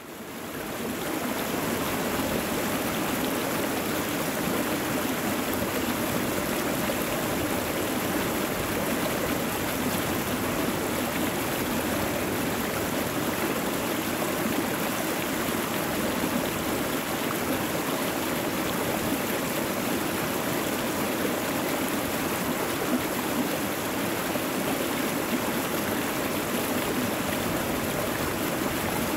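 Rushing river water pouring over a low weir: a steady, even rush that fades in over the first second or so.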